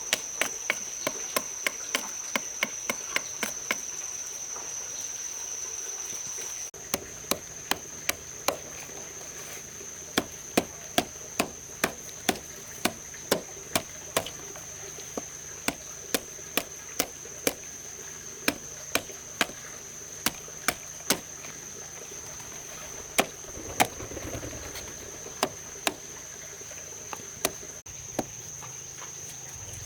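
Repeated sharp blows of a tool striking wood, about two to three a second, sparser near the end. A steady high-pitched insect drone runs underneath.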